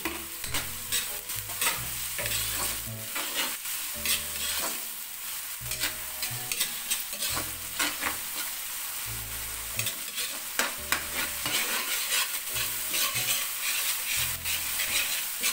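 Chopped onions, garlic, ginger and bell pepper sizzling as they are sautéed in oil in a wok. A metal spatula stirs and scrapes against the wok in repeated quick strokes.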